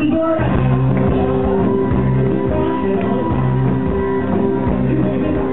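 Loud 1950s-style rock and roll music with guitar, playing steadily.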